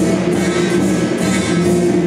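Loud, continuous music with held instrument notes and no break.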